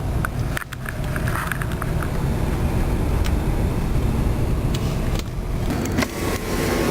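Car driving slowly, heard from inside the cabin: a steady low engine and road rumble, with a few faint clicks.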